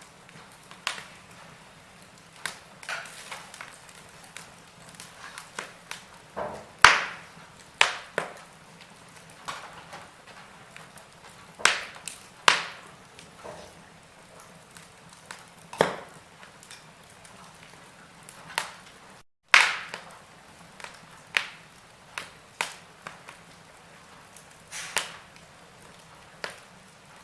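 Wood fire in a fireplace crackling: irregular sharp pops and snaps, a few much louder than the rest, over a faint steady hiss.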